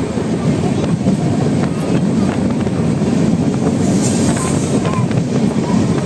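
Antyodaya Express running along the track, a steady loud rumble of the moving train with faint clicks from the wheels. A brief hiss rises about four seconds in.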